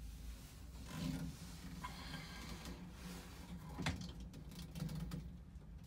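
Clear braided hose being handled and worked onto a pump's hose fitting: rustling and scraping, with a sharp knock a little under four seconds in, over a steady low hum.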